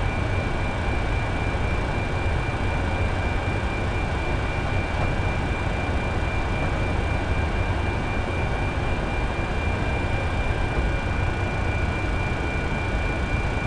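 Steady rushing hum inside a Boeing 747 flight deck, with a steady high-pitched whine over it; the level does not change.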